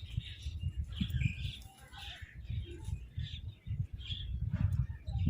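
Crows and mynahs calling over one another in short, overlapping calls, as they squabble over food, with repeated low thumps underneath.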